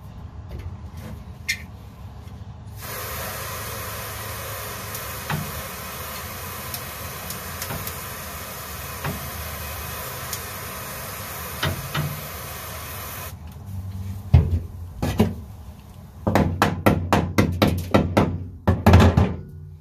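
Hammer and chisel knocking old sound-deadening mat off a Toyota AE86 Corolla's sheet-metal floor pan: a few scattered knocks, then a quick run of loud strikes over the last few seconds. A steady hiss starts abruptly about three seconds in and stops just as suddenly some ten seconds later.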